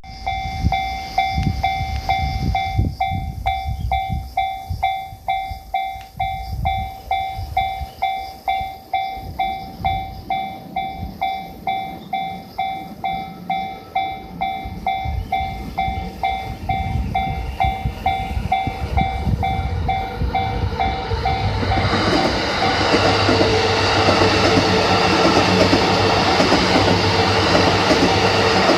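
A Japanese railway level-crossing warning bell rings at about two strokes a second. About three-quarters of the way in, a Yamanote Line electric commuter train passes over the crossing, and its running and rail noise covers the bell.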